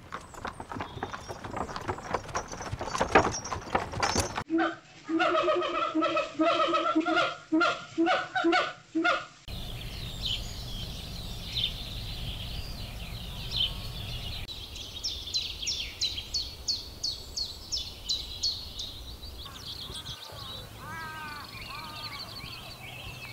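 Several animal sounds in turn. First a run of sharp clicks. Then, from about four seconds in, a series of short honking calls, about two a second, lasting roughly five seconds. Then high chirping and twittering calls from small birds.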